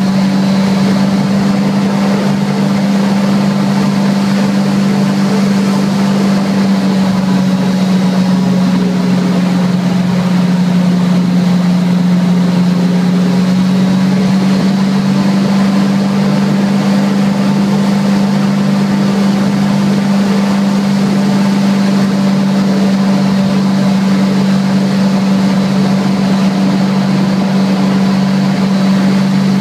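Airboat's engine and propeller running at a steady cruising speed: one loud, constant drone with many overtones, holding the same pitch throughout.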